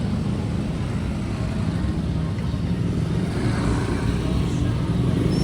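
Steady low rumble of motor vehicles, growing slightly louder near the end.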